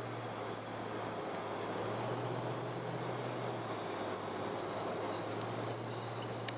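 Inside the cabin of a 1970 Pontiac GTO cruising: a steady low V8 engine hum with road and tyre noise, and a thin steady high-pitched whine above it.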